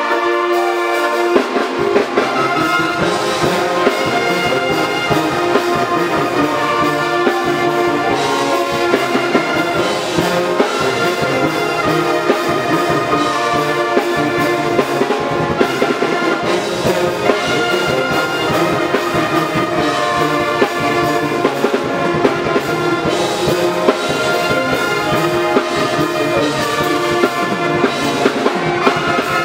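HBCU-style pep band playing loudly together: a brass section of trumpets and sousaphones with saxophones, a full continuous band sound.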